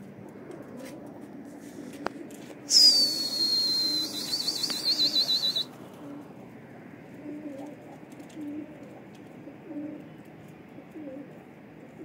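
Domestic pigeons cooing in soft, low, repeated calls. About three seconds in, a loud shrill whistle slides down in pitch, then holds with a fast warble for a couple of seconds and cuts off abruptly.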